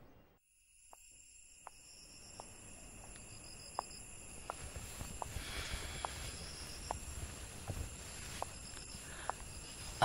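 Night insects, crickets, trilling steadily at several high pitches, one of them pulsing on and off. They fade in after about a second of silence. Faint short ticks come every half second or so.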